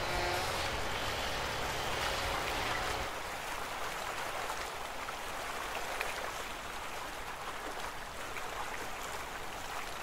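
Seawater splashing and streaming off the hull of a submarine as it is hoisted out of the sea, a steady rush of water. A low mechanical rumble underneath stops about three seconds in.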